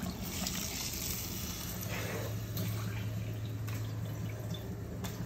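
Steady watery noise, with a low steady hum joining about two seconds in.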